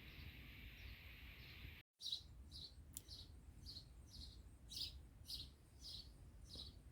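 Faint outdoor birdsong. After about two seconds, a bird repeats a short high chirp about twice a second.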